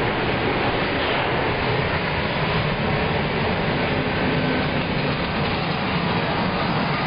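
Steady loud rush of air with a low rumble, from an indoor shooting range's ventilation system.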